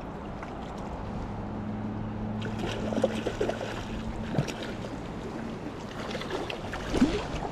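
River water running over shallow stones while a hooked cutthroat trout splashes at the surface several times as it is drawn in toward a landing net. A low steady hum comes in about a second in and fades a few seconds later.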